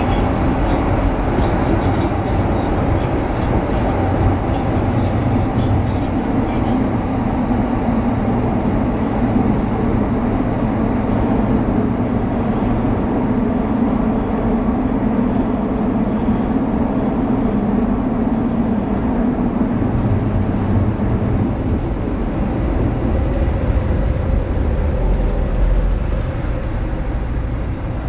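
Running sound inside a Kintetsu 3200 series electric train's motor car: a steady, loud rumble of wheels and running gear while the train runs along, easing off slightly near the end.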